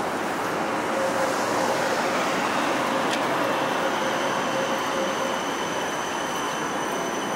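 Steady city street noise of traffic around an electric tram standing at its stop, with a faint steady mid-pitched tone for the first five seconds or so.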